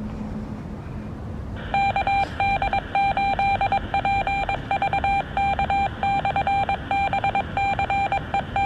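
Two-way radio hiss, then from about two seconds in a beeping tone keyed on and off in short and long beeps: a Morse-code identification sent over the radio after the net signs off.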